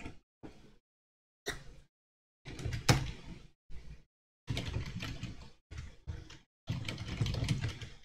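Computer keyboard typing and mouse clicks, in short spells of clatter with a few sharper clicks, broken by dead silence in between.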